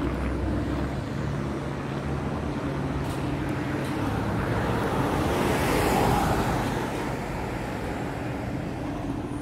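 Street traffic: a motor vehicle's engine running, then a vehicle passing close by, swelling to its loudest about six seconds in and fading away.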